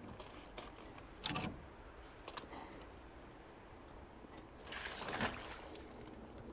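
Faint handling noises: a couple of short knocks in the first few seconds, then a brief rustle about five seconds in.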